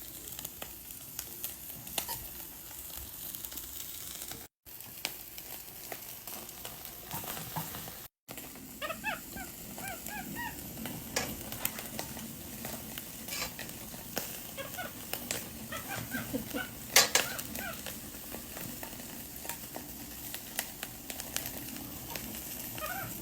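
Food sizzling and crackling on a small hot grill, with many small pops, cutting out briefly twice. Short high chirping calls come and go in the middle.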